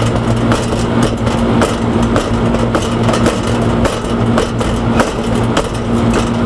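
Steady low machine hum with irregular sharp metallic clicks and taps, several a second, from channel-lock pliers working an AC condenser fan blade hub loose on the old fan motor's shaft.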